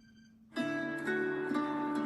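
A Samsung Galaxy S24 Ultra stock ringtone starting: after a brief quiet gap, a melody of ringing notes begins about half a second in, one note entering after another over a low held tone.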